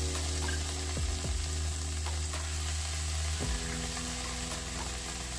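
Hot ghee in an aluminium kadai sizzling steadily as chopped green beans and carrots are added to fry.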